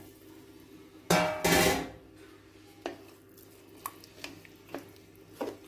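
A steel pan lid clanks and rings briefly about a second in, followed by a few light, separate taps of a spatula against the steel pan.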